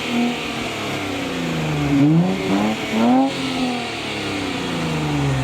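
Infiniti Q50 3.0t's twin-turbo V6 blipped twice through a Megan Racing Y-pipe and muffler delete, each rev rising quickly and falling back, then settling toward idle. The stock downpipes are still fitted, so more engine than exhaust note is heard.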